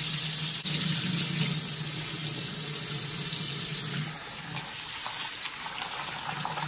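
Kitchen faucet running into a sink while rice is rinsed in a plastic colander, a steady rush of water. About four seconds in the flow drops off, leaving quieter trickling with small splashes.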